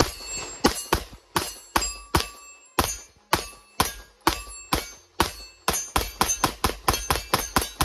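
Smith & Wesson M&P Performance Center Carry Comp pistol, with ported barrel and slide, firing a long string of around two dozen shots, each a sharp crack with a short ringing tail. The shots come two or three a second at first and quicken into rapid fire over the last two seconds.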